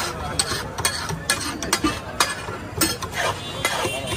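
Metal spatulas striking and scraping a large flat tawa as pulao is stirred and mixed on it: a quick, uneven series of sharp clinks.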